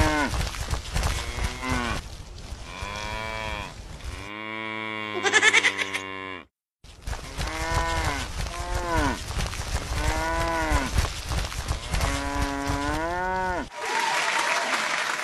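Cow mooing, a string of drawn-out moos that swell and fall, broken by a brief silence about six and a half seconds in. Near the end the mooing gives way to applause.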